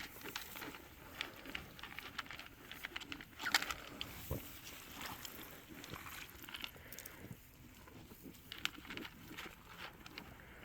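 Scattered footsteps and rustling on the ground, a string of small irregular clicks and scuffs, with a slightly louder scuffle about three and a half seconds in.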